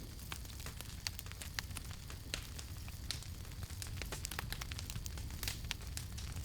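Campfire burning, with irregular sharp crackles and pops from the burning wood over a steady low rumble and hiss.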